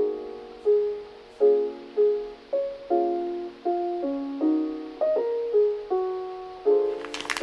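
Background music: a soft piano melody of struck notes, each fading away, about two notes a second. Sharp clicks start right at the end.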